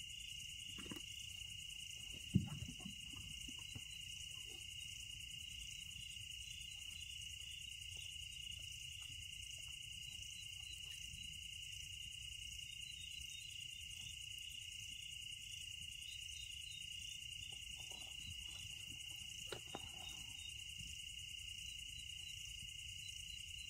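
Steady night chorus of crickets and other insects, trilling without a break, with a single short thump about two seconds in.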